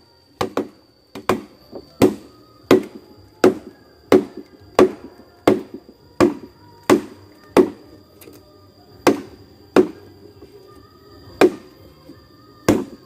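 A blade chopping into a hard, thick-walled petung (giant) bamboo culm: sharp, regular strokes about one every 0.7 seconds, with two longer pauses in the second half.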